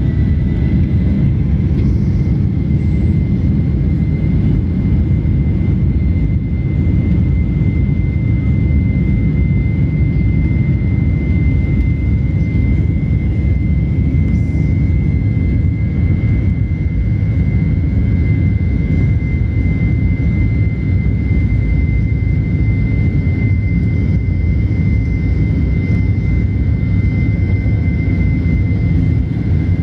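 Jet airliner's turbofan engines at takeoff thrust, heard from inside the cabin during the takeoff roll: a loud, steady rumble under a high engine whine that finishes climbing just after the start and then holds one pitch.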